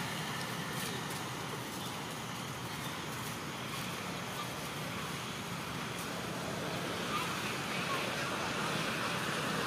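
Steady outdoor background noise: a constant hiss over a low rumble, with no distinct events.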